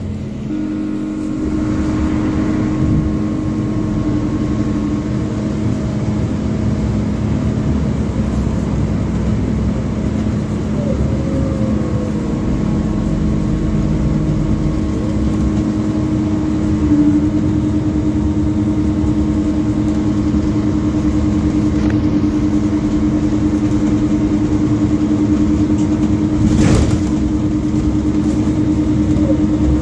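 MAZ 205 city bus under way, heard from inside the passenger cabin: a steady engine and drivetrain drone with a low hum and a brief rising whine now and then. A single short knock comes near the end.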